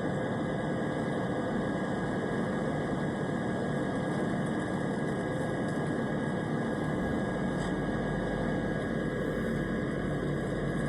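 Steady drone of an airplane's engines, an even rumbling hiss with a faint constant tone in it and no breaks; the deepest rumble grows a little fuller a bit over halfway through.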